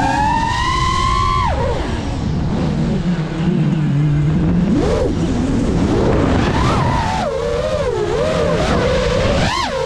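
GEPRC Mark 5 FPV quadcopter's motors and propellers whining, the pitch rising and falling with the throttle. About a second and a half in the whine drops sharply to a low hum as the throttle is cut, stays low for about three seconds, then climbs back and wavers up and down.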